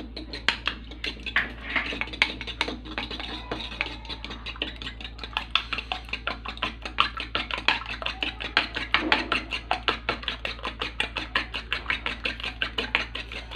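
Metal fork beating raw eggs in a small wooden bowl: rapid, even clicks of the fork against the bowl, about five strokes a second.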